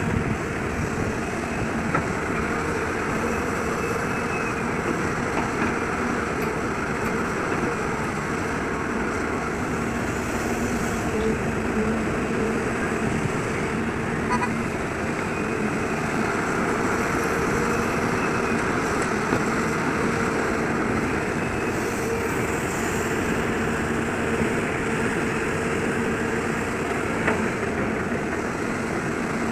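Heavy diesel machinery running steadily: an excavator's engine and hydraulics at work, with a faint whine that slowly rises and falls in pitch now and then.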